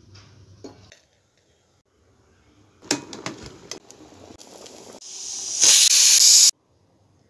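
Kitchen sounds: a few sharp clicks, then a loud hiss that builds up over a second or so and cuts off suddenly.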